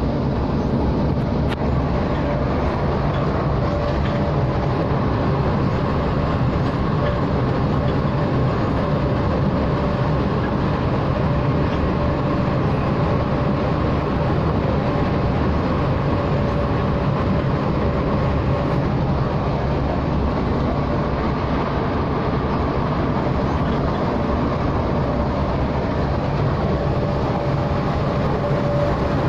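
Scania coach cruising at highway speed, heard from the driver's cab: a steady drone of engine and road noise with a faint, thin, steady whine.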